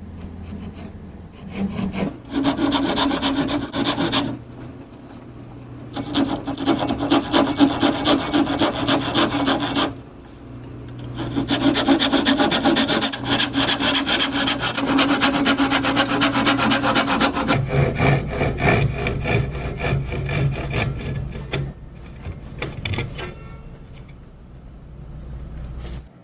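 Wood being worked with a rasping tool, sawing or sanding, in three long bursts of fast strokes. A lower-pitched stretch of the same work follows near the end before it dies away.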